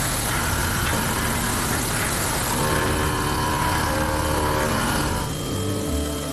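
Horizontal machining center running with a steady, loud mechanical noise. Background music comes in over it, and the machine noise fades near the end.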